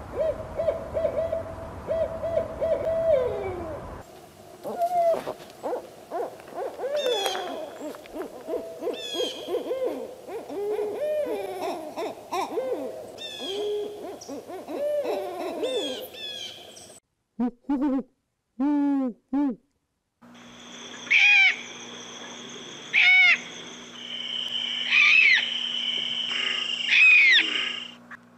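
Owls calling in several recordings spliced one after another. First come runs of repeated hoots, then about three short, low, falling hoots, and near the end higher-pitched calls.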